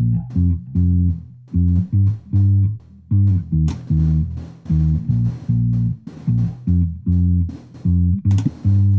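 Finger-played electric bass line playing back, a rhythmic run of short plucked notes with brief gaps between phrases. It is being run through a dynamic EQ band set to press down a frequency that jumps out.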